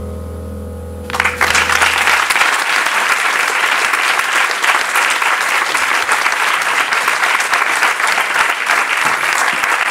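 A held stage-keyboard chord fades away as an audience suddenly breaks into loud, steady applause about a second in.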